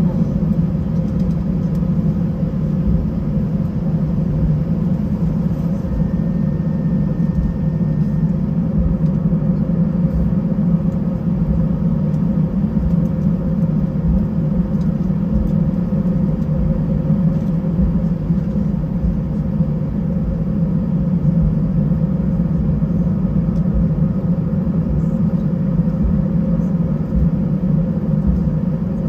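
Steady low rumble and hum inside the cabin of an Airbus A320 on the ground after landing, from its engines and air-conditioning. A faint thin high tone sounds for about two seconds, six seconds in.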